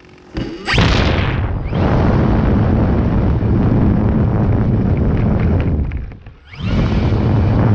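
Yak 54 electric RC plane's motor and propeller spinning up with a rising whine and running loudly at full throttle, cutting back briefly about six seconds in before spinning up again, with a deep rush of air. The plane lacks the power to lift off, which the pilot puts down to a throttle-to-ESC calibration problem.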